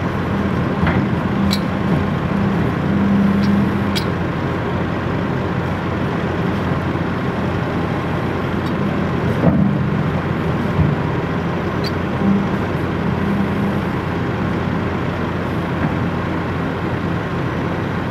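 Link-Belt 160X2 excavator's diesel engine running steadily while the boom and bucket are worked, with a few brief sharp clicks.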